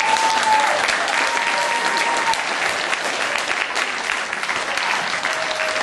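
Theatre audience applauding steadily, a dense patter of many hands clapping, with a faint held high note running through it in the first two seconds.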